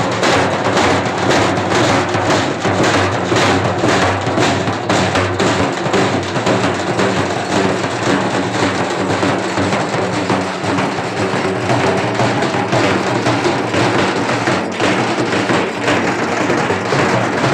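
Halgi frame drums beaten in a fast, steady rhythm.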